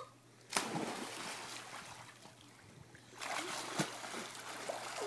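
Pool water splashing as a swimming child dives under. A sudden splash comes about half a second in and dies away, then more splashing and sloshing follows from about three seconds in.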